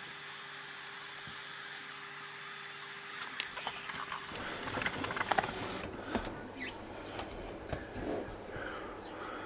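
Over a steady hum, a lubricated motorcycle tyre bead is worked onto its rim with a tyre-fitting tool, making irregular rubber squeaks, rubbing and clicks. These start about three and a half seconds in.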